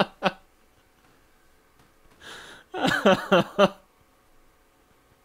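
A person laughing: a breathy intake, then a quick run of short "ha" bursts about three seconds in.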